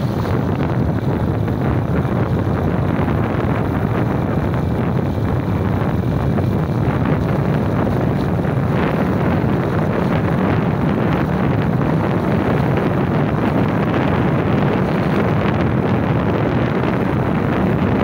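Steady wind rush on the microphone of a moving motorcycle, with the motorcycle's engine running underneath.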